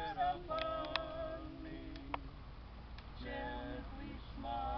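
A voice singing a slow melody in long held notes, breaking off about two seconds in and coming back about a second later, with a few sharp clicks.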